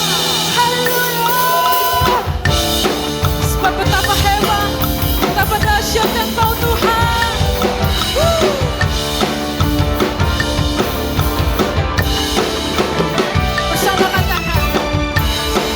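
Live drum kit, with kick, snare and cymbals, played along with a backing track of a sung pop/worship song. The full drum groove comes in about two seconds in.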